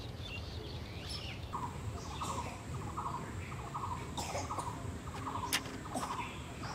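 Birds calling and chirping, with a rattling call repeated about three times a second from about a second and a half in, a thin steady high whine under it, and a sharp click late on.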